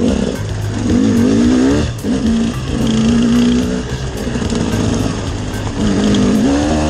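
KTM dirt bike engine under way on a trail, revs rising and falling repeatedly as the rider twists the throttle.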